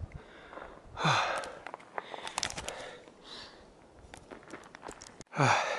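A hiker's breathing, with a loud breathy exhale about a second in and another near the end, and scattered light clicks in between.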